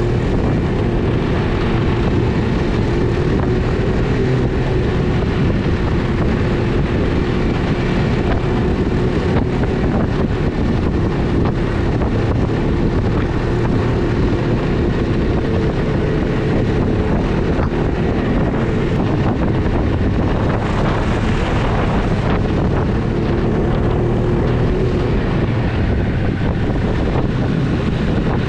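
Ski-Doo snowmobile engine running steadily at cruising speed, heard from the rider's seat, with wind noise on the microphone.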